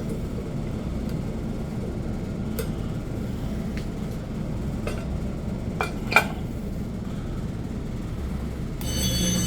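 Steady hum with a few light clinks and knocks of handling, the sharpest about six seconds in. Near the end a fire alarm starts sounding, a steady signal of several tones at once, set off by the heat detector test.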